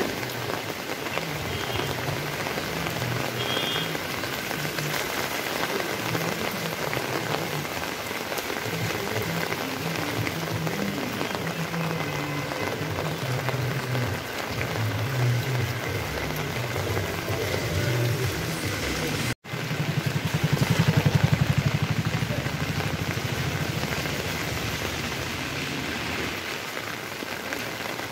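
Steady rain falling on a wet street, an even hiss with an irregular low rumble underneath. The sound drops out for an instant about nineteen seconds in and comes back louder for a few seconds.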